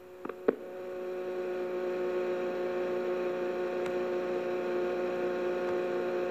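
Two clicks, the second louder, in the first half second, then a steady electrical hum with tape hiss from a home cassette recording that has been copied several times. The hum swells over the first two seconds and then holds.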